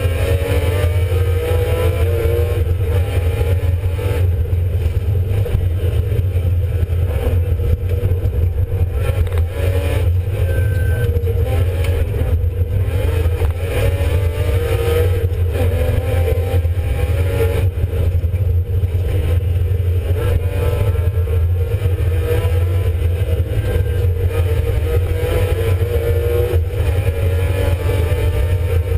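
BMW E36 Compact rally car's engine at racing speed, heard from inside the cabin, its revs rising and falling again and again. A constant loud low drone runs under it.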